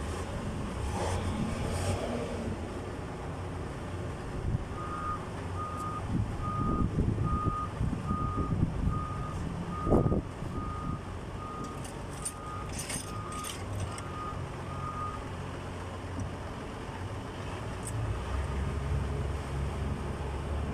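A vehicle's reversing alarm beeping at a steady pitch, about three beeps every two seconds, starting about five seconds in and stopping some ten seconds later, over a low engine rumble. A few sharp metallic knocks sound in between, the loudest about halfway through.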